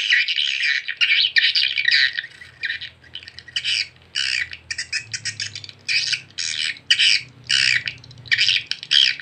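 Recorded swiftlet lure call ('suara panggil hantaran') played through horn tweeters from a swiftlet sound player: dense, rapid bursts of high chirping and twittering of edible-nest swiftlets, several bursts a second, used to draw swiftlets into a bird house.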